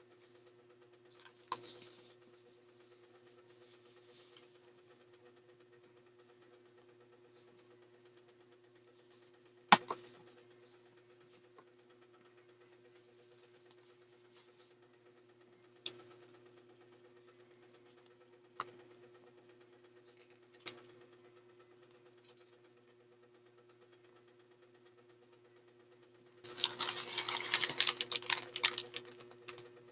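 Items and packaging being handled: a few scattered sharp clicks and knocks, the loudest about ten seconds in, then a few seconds of dense crinkling rustle near the end. Under it runs a faint steady electrical hum.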